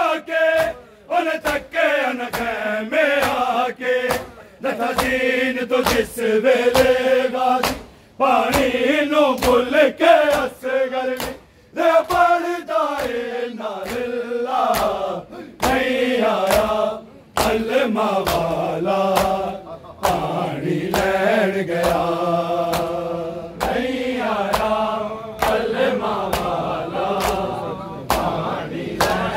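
Men chanting a Shia noha (a Muharram lament) in a slow, steady rhythm, with repeated sharp slaps of hands striking bare chests (matam) keeping the beat.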